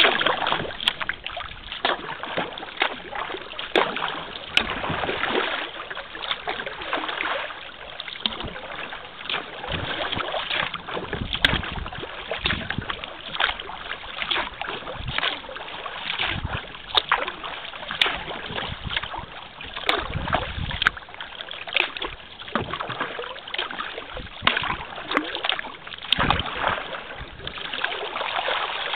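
Kayak paddling on calm river water: the paddle blades dipping and splashing in repeated strokes, with water dripping and trickling between them and a few low thumps.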